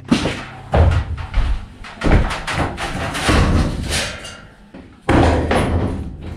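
Clanks and thuds of steel sections and a sheet-metal van roof panel being handled and knocked against each other: about five separate knocks, each with a short ring.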